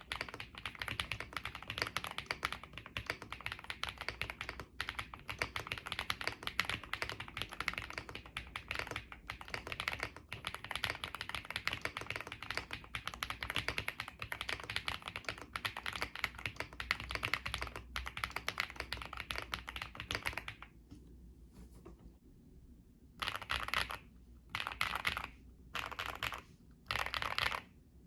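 Typing on a stock Epomaker Galaxy68 mechanical keyboard with Marble White switches, stock keycaps, foams and plate: fast continuous keystrokes for about twenty seconds, a pause of a couple of seconds, then four short bursts of rapid key presses.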